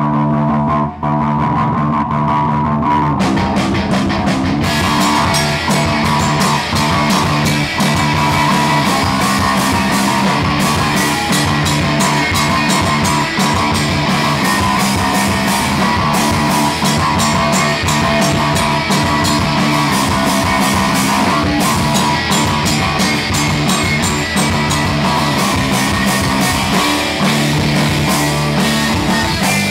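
Live rock band playing loud. Guitar and bass open the song, and drums with cymbals come in about four seconds in.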